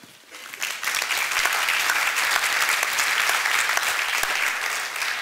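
Audience applauding: the clapping swells over the first second, holds steady and begins to fade near the end.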